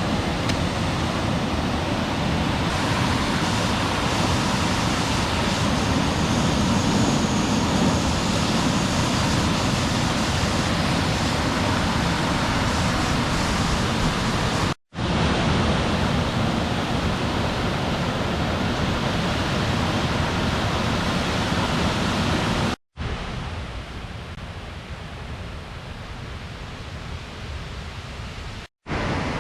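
Steady rush of water running continuously. It breaks off abruptly three times and resumes after each gap, quieter and duller in the stretch after the second break.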